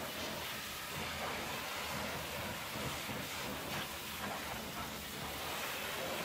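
Pressure-washer jet hissing steadily as it sprays a semi truck's tyre, wheel and fender.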